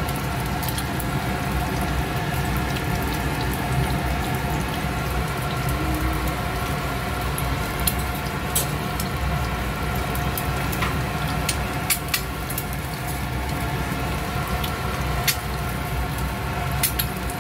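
An egg frying in hot oil in a small nonstick pan on a gas hob: a steady sizzle with occasional sharp pops of spitting oil, over a steady low hum.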